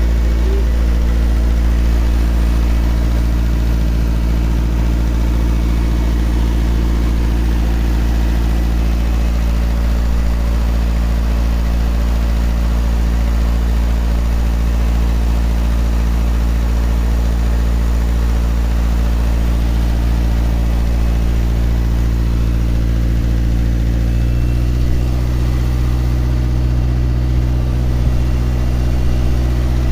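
Toyota Corolla GLI engine idling steadily, its note shifting slightly about three-quarters of the way through.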